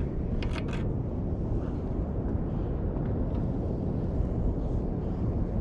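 Wind rumbling steadily on the microphone, with a few faint clicks about half a second in.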